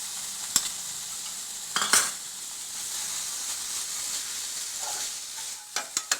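Desiccated coconut and beetroot juice sizzling in a kadai while being stirred, with a spatula knocking against the pan a few times. The steady sizzle begins to fade near the end.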